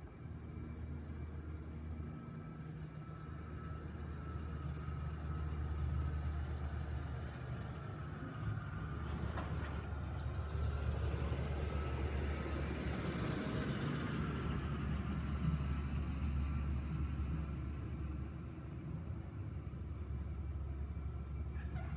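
A car driving slowly past through a parking lot, its engine and tyres growing louder to a peak about halfway through and then easing off, over a steady low hum.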